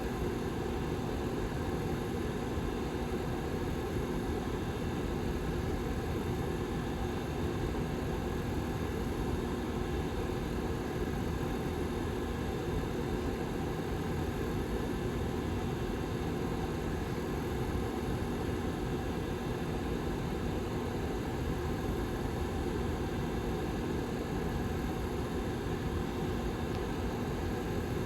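Rear fan of a Lasko 755320 tower heater running steadily: an even rush of air with a constant low hum.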